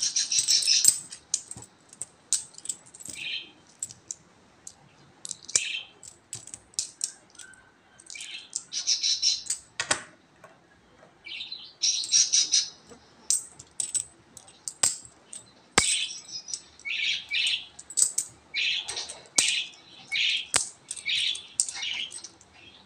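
Philippine peso coins clinking against each other in the hands as they are counted one by one: an irregular run of short metallic chinks, with a few sharper clicks.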